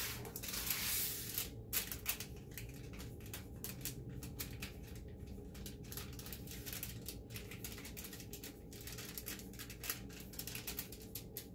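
Marker writing on heavy-duty aluminium foil: many quick, light scratchy strokes, after a short rustle of foil at the start as the package is handled.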